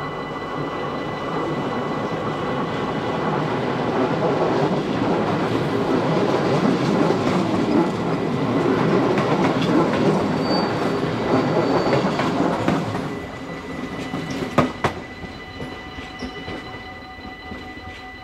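Dutch NS commuter train passing over an automatic flashing-light level crossing. Its rumble swells, holds for about ten seconds and then fades, with a few sharp clacks as it clears. The crossing's warning bell rings steadily throughout.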